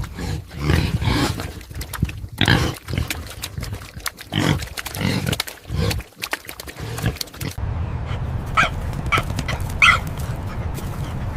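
Farm animals calling: a run of rough, noisy calls about half a second each, then, after a sudden change of background, three short calls near the end.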